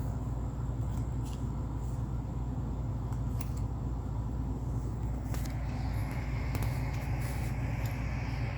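Steady low hum throughout, with a few light clicks and plastic rustles as trading cards are slid into protective card sleeves.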